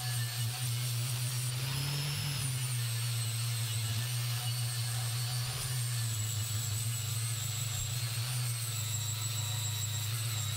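Electric angle grinder with a flap disc grinding welds flat on a steel plate: a steady motor hum with a high whine that wavers slightly in pitch as the load changes.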